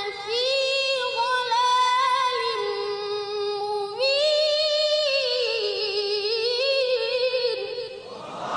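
A boy's high voice chanting Quran recitation in the melodic, drawn-out tajweed style, holding long ornamented phrases. A new, higher phrase starts about four seconds in, and the chant stops just before the end.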